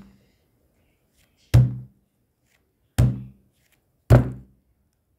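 Three dull, loud knocks, roughly a second to a second and a half apart, each short with a brief low thud, like something hard knocked against a desk.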